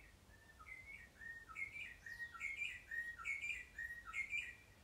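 A songbird singing a repeated phrase of short whistled notes, growing louder after the first second and stopping just before the end.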